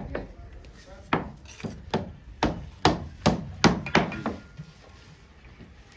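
A hand tool knocking against brick in bricklaying work: about eight sharp strikes over the first four seconds, coming faster toward the end, then they stop.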